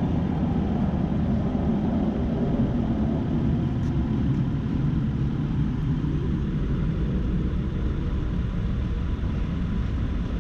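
2003 Acura TL's 3.2-litre V6 idling steadily, a low even rumble, running smoothly after its cylinder 6 misfire was repaired.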